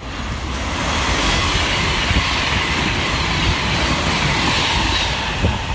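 Passenger train running through a station at speed on the main line: a steady rush of air and wheels on rail, with some clatter from the wheels. It builds over the first second and then holds.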